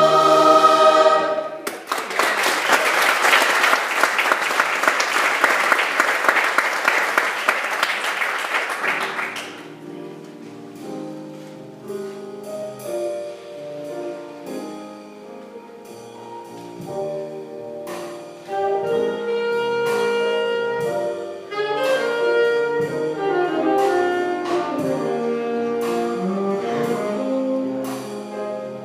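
A choir's held chord ends, followed by about eight seconds of audience applause. Then a quiet instrumental passage on piano and saxophone begins, growing louder about eighteen seconds in.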